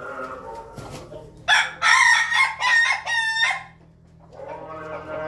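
An ayam ketawa (laughing chicken) rooster crowing once for about two seconds, the crow breaking into a quick stuttering run of short notes at its end, the laughing finish the breed is kept for. A fainter pitched sound runs before and after the crow.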